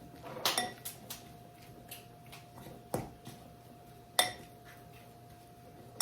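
A metal spoon clinking against a mixing bowl while food is stirred: several sharp, ringing clinks, the loudest about half a second in and about four seconds in. A faint steady hum runs underneath.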